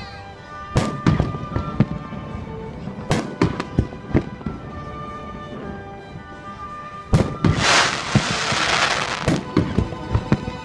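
Aerial fireworks going off in a quick series of sharp bangs, with a dense crackling burst lasting about two seconds past the middle.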